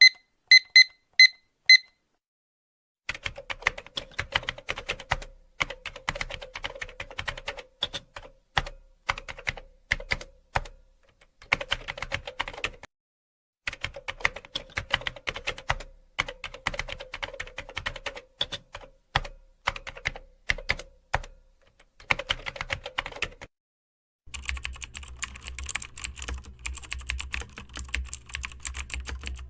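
Typing on a computer keyboard: quick runs of key clicks in bursts a second or two long, with short pauses between them. It opens with a few short, evenly spaced electronic beeps. Near the end a denser, continuous stretch of typing begins over a steady low hum.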